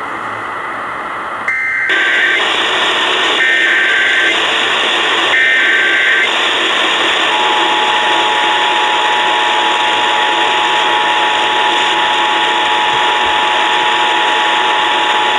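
Emergency Alert System transmission heard over AM radio with hiss and static: three short, buzzy SAME header data bursts about a second apart, then the steady two-tone EAS attention signal sounding for about eight seconds. The activation announces a Child Abduction Emergency (an Amber alert).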